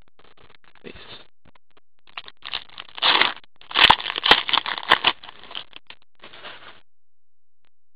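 Foil wrapper of a hockey card pack being torn open and crinkled: a run of crackling that starts about two seconds in and stops near seven seconds, with a few sharp clicks in the middle.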